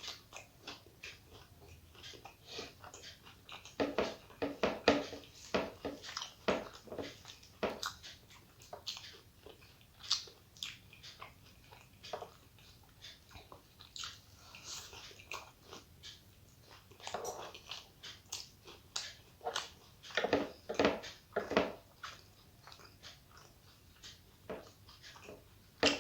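Close-up eating sounds of a person chewing a meal of rice and curry: wet chewing and mouth smacks in bursts, with some crunchy bites.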